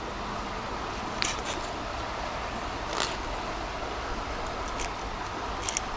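A few light clicks and ticks from a spinning reel and line being handled and untangled, over a steady outdoor hiss.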